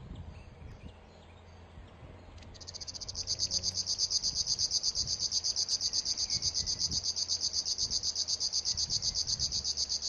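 River warbler singing: a long, high, rapidly pulsed buzz at about seven pulses a second. It starts about two and a half seconds in, builds up quickly, holds steady, and cuts off near the end.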